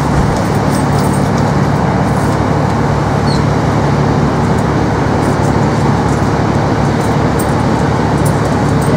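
Steady running noise heard from inside a moving passenger train carriage, a constant rumble with a low hum beneath it and a few faint light ticks.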